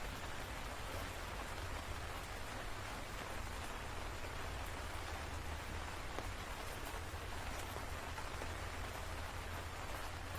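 Steady heavy rain falling, an even hiss without pauses, with a low rumble underneath.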